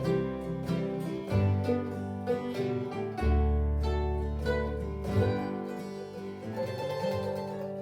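1923 Gibson F-5 Loar mandolin with acoustic guitar and bass playing the closing bars of a waltz in a bluegrass style. Near the end the trio lands on a final held chord that rings out and fades.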